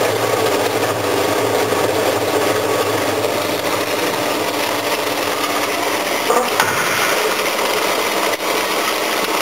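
Inclined stainless steel screw auger conveyor running steadily, its motor and turning screw carrying aluminium sulphate granules up the tube. A few brief knocks sound in the last third.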